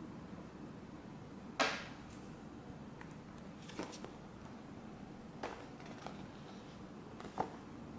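Handling of a trading-card starter pack's packaging and cards: a few short, sharp rustles and taps of card and plastic, the loudest about one and a half seconds in, over faint background hiss.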